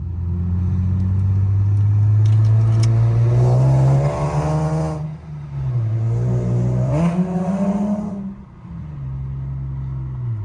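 Car engine and exhaust pulling away hard, the note climbing, then dropping at a gear change about five seconds in, climbing again and dropping at a second shift near eight and a half seconds, then holding a steady cruise. A second resonator is fitted to the exhaust, which the driver says got rid of the drone and a little of the rasp.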